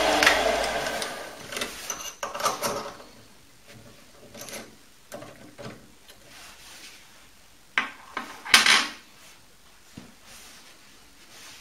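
An Optimum D180x300 Vario lathe's motor and spindle winding down after being switched off, fading over the first two seconds. Then a series of metal clicks and knocks as parts are handled at the milling setup, the loudest two close together about eight seconds in.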